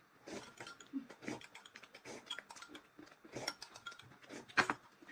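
Close-up eating sounds: a person chewing and smacking, with irregular wet clicks and crunches, the loudest just after four and a half seconds.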